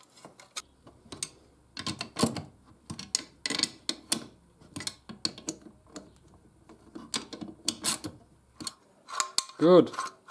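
Irregular clicks and taps of a screwdriver turning the screws that draw a Stihl TS 420 engine's two metal crankcase halves together, with the case being handled.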